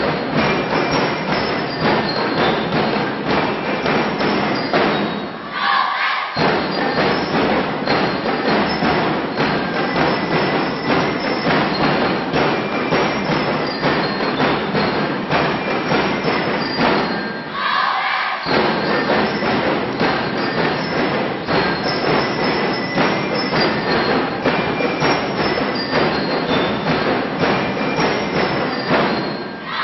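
Drum and lyre corps playing: rapid, dense drumming with bell-lyre notes ringing above it. The drumming breaks off briefly twice, about six seconds in and again about eighteen seconds in.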